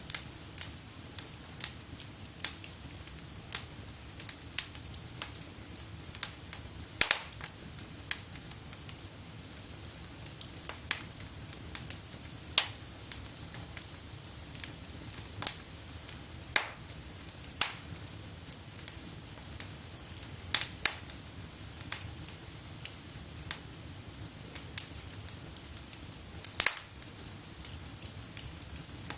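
Wood fire burning in a fireplace: a steady low rustle of flames with irregular sharp crackles and pops from the burning logs, a few of them louder snaps.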